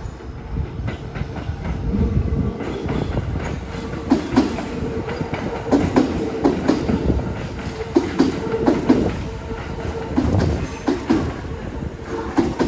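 A Kintetsu train passing over the level crossing, its wheels clicking over the rail joints in repeated groups every couple of seconds over a steady rumble.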